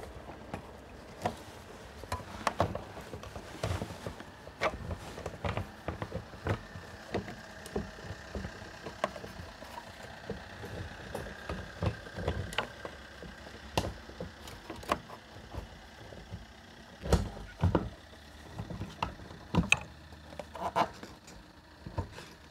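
Irregular plastic clicks, knocks and rustling as a Honda Civic's fuel pump and filter module is worked by hand down into the fuel tank opening, with the loudest knocks in the last third.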